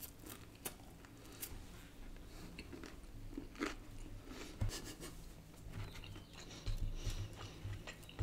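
A person chewing a mouthful of fried chicken close to the microphone, quietly, with scattered small crunches and mouth clicks.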